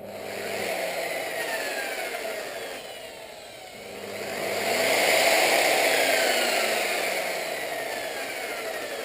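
Electric polisher running with its compounding pad spinning while the pad is cleaned of old compound. The motor whine slides up and down in pitch, eases off about three seconds in, then picks up louder again.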